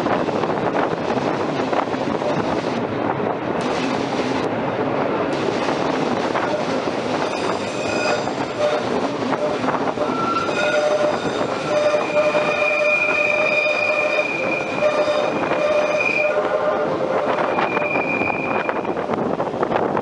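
Wheels of a vintage metre-gauge passenger train running along the track, with flange squeal from the wheels on a tight curve: high squealing tones come in about a third of the way through and come and go, held longest near the middle.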